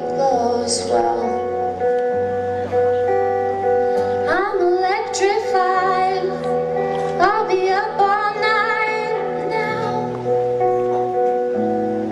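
A woman singing a slow song live over sustained instrumental chords and a slow-moving bass line; her voice comes through most clearly in two gliding phrases in the middle.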